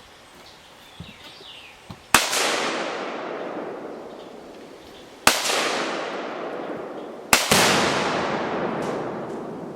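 Three shots from an AR-15 rifle (Colt 6920), about three seconds and then two seconds apart. Each is followed by a long echo that slowly dies away.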